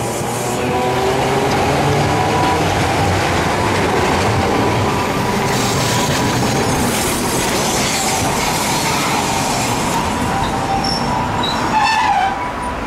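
Hiroden 100-type vintage streetcar No. 101 running on street track close by, a steady rumble of wheels on rail with a steady whine over it. Near the end there is a brief squeal of wheels on the rail.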